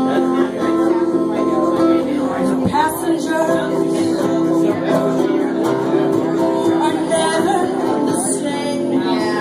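Live guitar music: two guitars playing a song's chords together in a steady strum.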